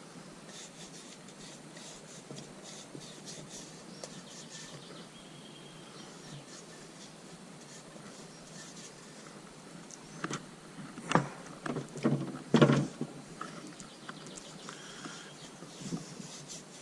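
Soft scratchy rubbing of sealant being spread over the inside of a motorcycle tyre, then a cluster of loud knocks about ten to thirteen seconds in and one smaller knock near the end.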